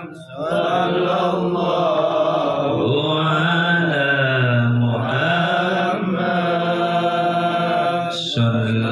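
Sholawat sung in Arabic: the blessing on the Prophet Muhammad chanted in long, drawn-out melodic notes, with a short breath pause right at the start.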